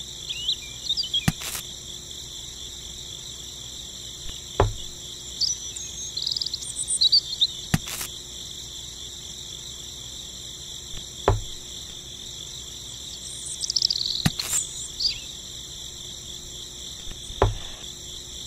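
Steady high-pitched chorus of crickets, with a light knock about every three seconds as wooden twigs are set down on small stones.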